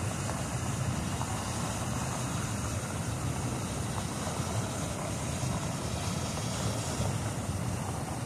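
Steady rushing noise of fast, turbulent river water, with wind buffeting the phone's microphone.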